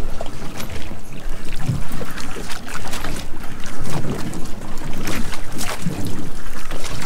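Wind buffeting the microphone over water lapping against a small boat's hull, with scattered short knocks and splashes.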